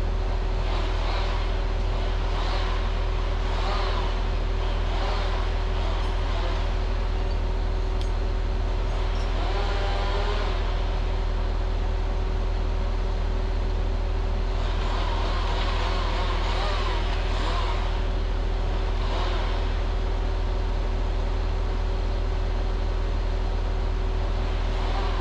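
Diesel engine of a converted Rottne H20 harvester carrying a winch, running steadily at a constant speed with a deep hum and a steady tone. Higher wavering sounds rise and fade over it several times.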